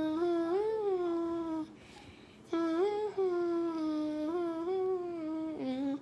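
A person humming long held notes with slow pitch glides, in two phrases with a short breath between them.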